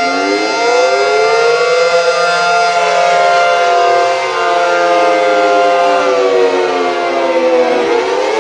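Synthesized Federal civil defense sirens with 9/12-port rotors, several wailing together, their pitches rising and falling slowly and out of step with each other.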